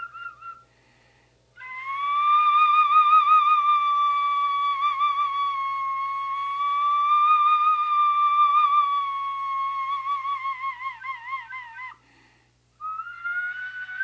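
Iwabue, a Japanese stone flute, blown in long held notes with a pure whistling tone. A note ends just under a second in, then after a short break one long note holds for about ten seconds and wavers into a fast vibrato near its end. After another short break, a higher note begins.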